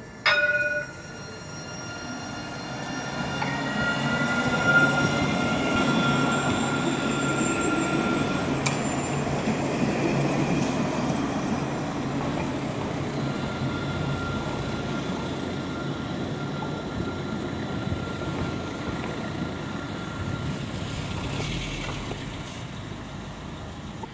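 Alstom Citadis tram pulling away from a stop. A short, loud tone sounds in the first second. Then the rising whine of the traction motors and the rumble of the wheels build over the next few seconds as it accelerates past, fading slowly as it moves off.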